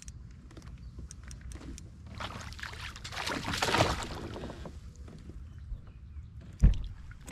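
A smallmouth bass splashing and thrashing at the surface beside a kayak as it is brought in and grabbed by hand, with a burst of splashing that swells and fades over about two and a half seconds. Small clicks come before it, and a single heavy low thump against the boat comes near the end.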